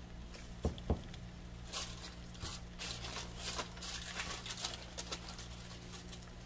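Two soft knocks as a breaded salmon croquette patty is set into a pan of frying oil, then aluminium foil crinkling for a few seconds as hands handle patties lying on it, over a steady low hum.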